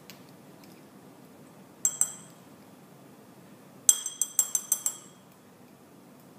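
Metal spatula clinking against glassware as agar pieces carrying fungus are knocked off into a conical flask of culture medium. One sharp ringing clink comes about 2 seconds in, then a quick run of about seven clinks a couple of seconds later.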